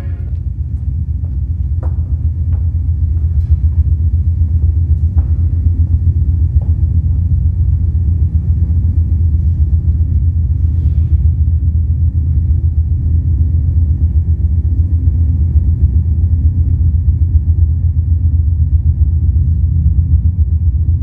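A loud, deep, steady rumble with a rapid flutter, swelling over the first few seconds, with a few faint clicks in the first part.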